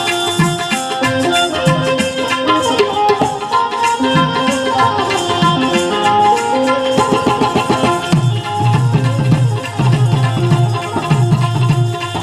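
Instrumental Indian devotional folk music: a sustained melodic instrument plays over hand-drum accompaniment. About eight seconds in, heavier low drum strokes join in a steady rhythm.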